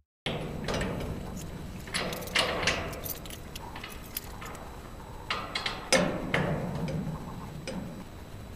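Rustling and clinking handling noise, with sharp clicks and clatters that are loudest about two seconds in and again about six seconds in.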